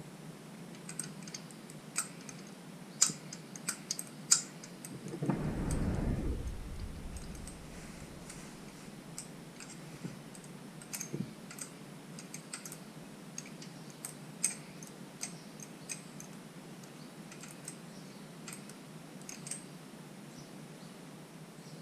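Irregular sharp clicks and taps of a hand wrench working on an engine's valvetrain, with a brief low rumble about five seconds in.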